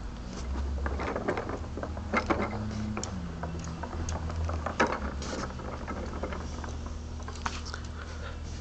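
Scattered clicks and rattles of plastic Lego Technic parts, with a short mechanical whir that drops slightly in pitch about two seconds in, over a steady low hum.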